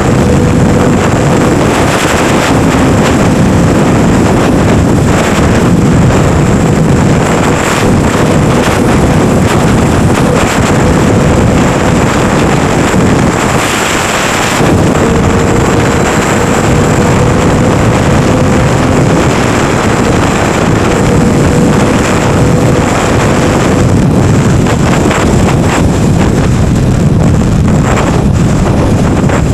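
Steady wind rush on the microphone over the running engine and road noise of a moving motorcycle.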